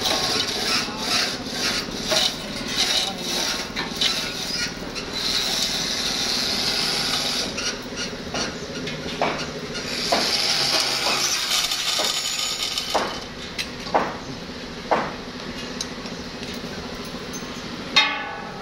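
Workshop clatter: scattered metallic knocks and clinks, with one louder ringing strike near the end, over a steady hiss.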